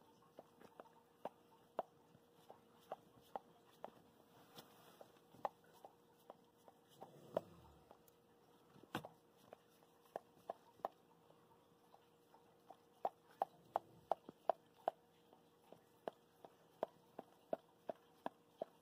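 Border Collie mother licking her newborn puppy: a long string of short, wet clicks and smacks, irregular at about one to three a second, coming faster in the second half.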